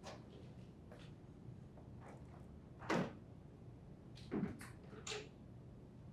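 Short knocks and clunks of an LG refrigerator door being lifted off its bottom hinge pin and handled: a knock about three seconds in, then two softer ones over the next two seconds.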